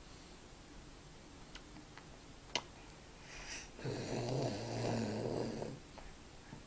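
Baby making a low, rough, throaty sound lasting about two seconds, about four seconds in, just after a short breathy noise.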